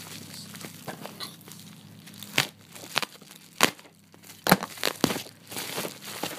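A shipping package being sliced and torn open by hand: crinkling and rustling of the wrapping, with about five sharp snaps in the second half.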